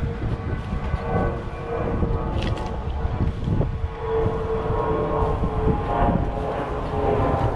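A steady mechanical drone holding one pitch with overtones, loudest in the middle, over an uneven low rumble.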